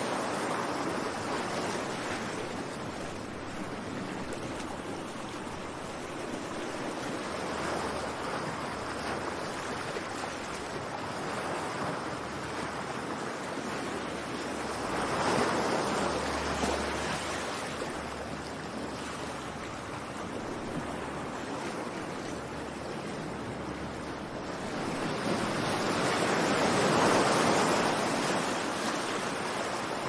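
Ocean surf: waves breaking and washing up a beach in a continuous rush that swells and fades every several seconds, with the biggest surge near the end.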